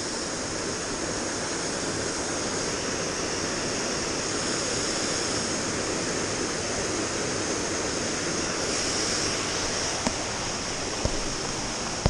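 Waterfall rushing steadily, with a couple of faint clicks near the end.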